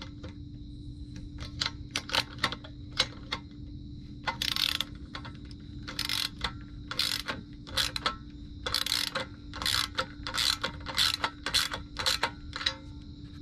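Hand socket ratchet wrench clicking in repeated short bursts as a bolt is run down and tightened to fix an antenna spoke to an aluminium boom.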